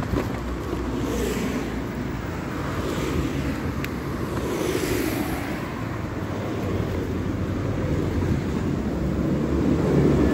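Steady motor-vehicle and road noise while riding, a low hum with wind rushing on the microphone, rising in a few whooshing swells.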